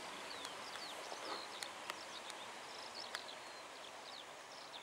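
Small birds chirping in short, quick calls that fall in pitch, scattered through a steady outdoor hiss, with a few sharp clicks.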